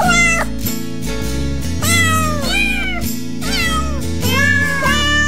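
A small kitten mewing again and again, about six high-pitched mews that each fall away at the end. Background music with a steady beat plays underneath.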